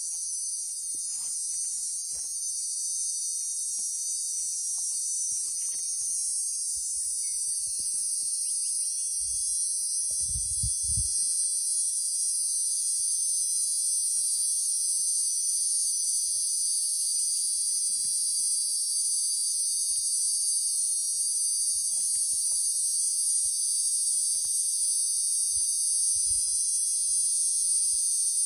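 Cicada buzzing, a steady, continuous high-pitched drone that slowly grows louder; the male's call to attract a female. A few low thumps about ten seconds in.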